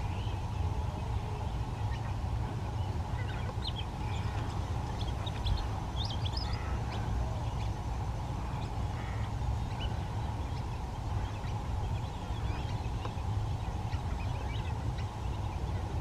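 Scattered short, high chirps of small birds, thickest in the first half, over a steady low rumble and hum.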